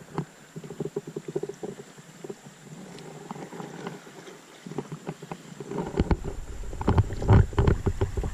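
Paddle dipping and water splashing and lapping against an inflatable raft, with scattered small knocks. Wind buffets the microphone as a low rumble that builds over the last couple of seconds.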